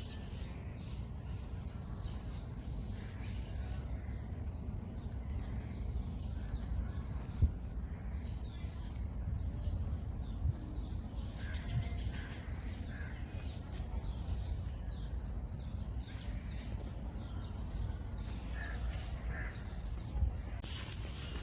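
Birds calling on and off, short harsh calls scattered through, over a steady high insect drone and a low rumble. A single sharp knock about seven seconds in.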